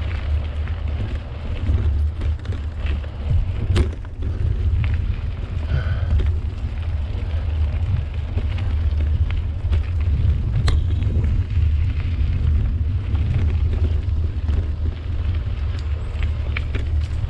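Wind buffeting the microphone of a camera on a mountain bike riding a dirt trail, a steady low rumble, with the tyres and bike rattling over the ground and a sharp clack about four seconds in and another a little before eleven seconds.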